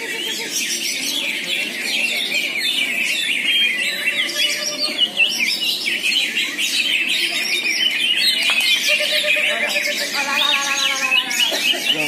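Many caged songbirds singing at once at a songbird contest, a dense, continuous chorus of rapid chirps, whistles and trills.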